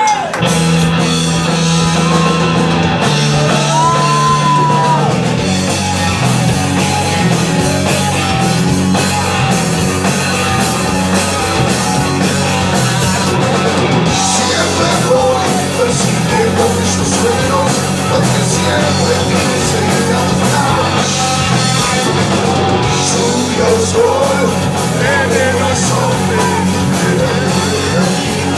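Rock band playing a song live, loud, with a singer singing and yelling over the band. It opens with a few seconds of held low chords, then the full band comes in with a steady beat about five seconds in.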